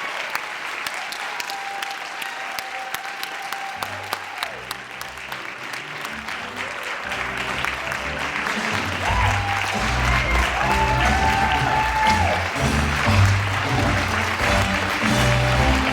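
Audience applauding steadily while curtain-call music comes in: a bass line starts about four seconds in and the music grows louder from about nine seconds.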